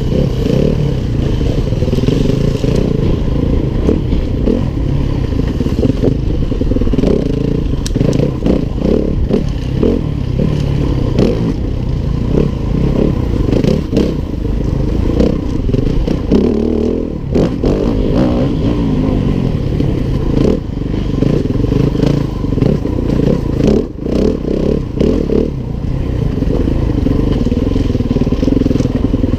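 Four-stroke enduro motorcycle engine running while riding rough trail, revs rising and falling with the throttle. Frequent clatter and knocks from the bike going over rocks and roots.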